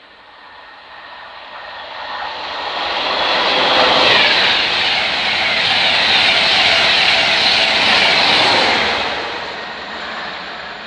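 InterCity 225 passenger train, led by its Class 82 driving van trailer with a Class 91 electric locomotive at the rear, passing at speed. The rushing noise of wheels and air builds over about four seconds, holds steady, then eases off near the end.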